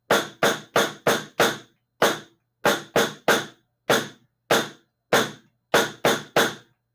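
Snare drum struck with sticks, about twenty single strokes in a straight fast rhythm with no flams: quick runs of hits broken by longer gaps, each hit short and crisp.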